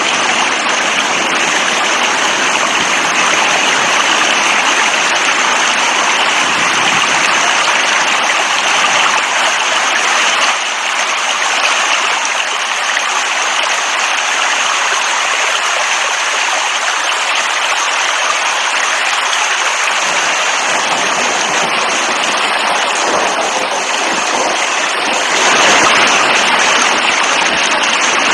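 Steady heavy rain: a dense, even hiss of falling water that swells a little about 25 seconds in.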